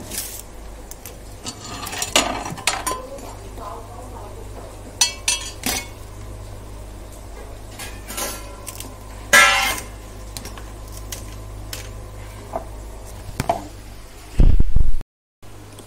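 Steel kitchen utensils and pots clinking and clattering as they are handled, in scattered sharp clanks, the loudest about nine seconds in. A short heavy thump near the end, then the sound cuts out.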